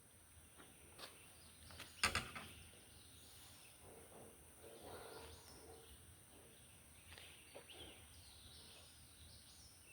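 Quiet outdoor ambience with faint, scattered bird chirps and a single sharp knock about two seconds in.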